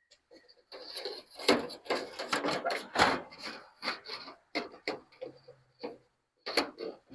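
Irregular scraping, rubbing and knocking of gutter guards and screws being handled and fitted on the gutter, with a brief low hum about five seconds in.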